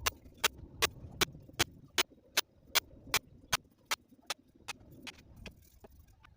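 A steady run of sharp clicks or taps, about two and a half a second, loud at first and growing fainter in the second half.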